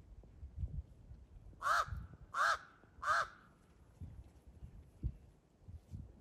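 Three harsh calls, evenly spaced about two-thirds of a second apart, each rising and falling in pitch, come between about one and a half and three seconds in. Under them is the soft crunching and thudding of an African wild dog chewing at a carcass.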